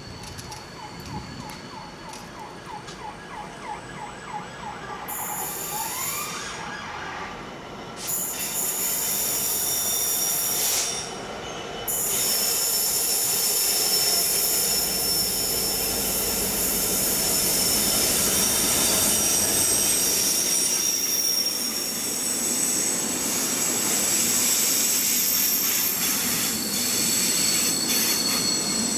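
Freightliner Class 66 diesel locomotive hauling a container freight train past, the wagons' wheels squealing in several steady high-pitched tones over a loud rumble of the passing wagons. Before the train arrives, a ticking speeds up and ends in a short rising whine.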